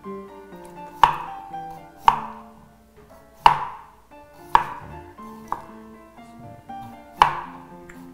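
Kitchen knife slicing a cucumber on a chopping board: six sharp chops, roughly one a second, over background music.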